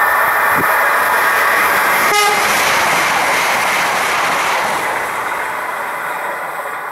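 Siemens Desiro Classic electric multiple unit (OSE class 460) sounding its horn as it approaches. About two seconds in it passes at speed with a sudden rush of air and wheel noise, which fades steadily as the train moves away.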